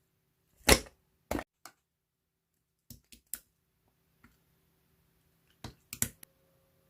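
Slime being played with: scattered sharp pops and clicks, about nine in all, coming in small clusters of two or three.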